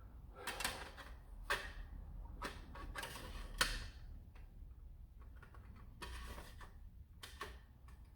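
Plastic parts of a toy blaster being handled and fitted together, making scattered light clicks and knocks. The loudest comes a little over three seconds in.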